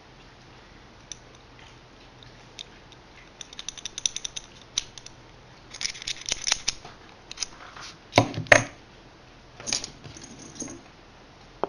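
Irregular small clicks and light metallic clatter, like parts or hand tools being handled, with a louder knock about eight seconds in.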